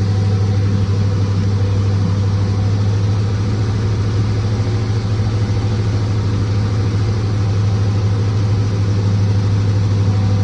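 Hemi V8 engine running with the throttle held at a steady speed a little above idle, warming up so the coolant circulates. It runs as an even, unchanging hum.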